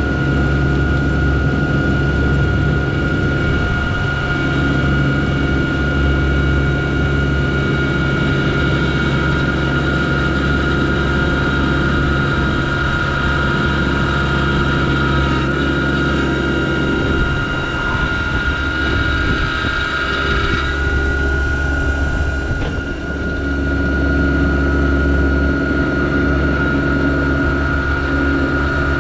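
Yanmar SA324 compact tractor's three-cylinder diesel engine running steadily under load, with a steady high whine over it. The engine note shifts and dips briefly about two-thirds of the way in.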